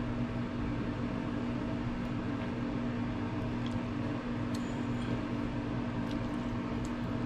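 Steady low machine hum from a running appliance, with a few faint light clicks in the second half.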